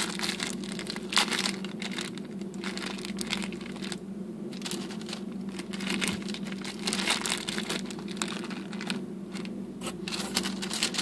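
Thin plastic sandwich bag crinkling and rustling irregularly as hands knead Vaseline into cotton balls inside it and pull them out, over a steady low hum.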